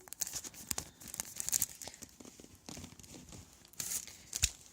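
Sticker sheets and their packaging being handled: irregular crinkling and rustling, with a sharper knock about four and a half seconds in.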